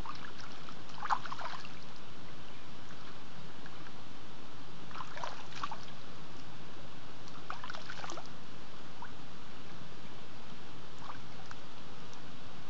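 Steady rushing of flowing water, like a mountain stream, with a few short crackling clicks about a second in, midway, and again a few seconds later.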